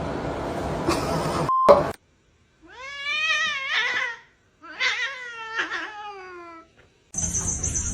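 A domestic cat giving two long, drawn-out meows, each rising and then falling in pitch, after a couple of seconds of unclear background noise.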